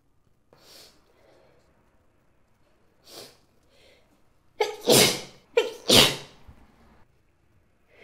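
A woman's short sharp in-breaths building up, then two loud sneezes in quick succession about five and six seconds in.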